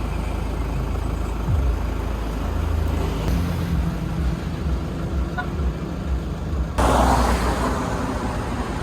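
A motor vehicle running with a steady low rumble and road noise, with a louder rush of noise about seven seconds in.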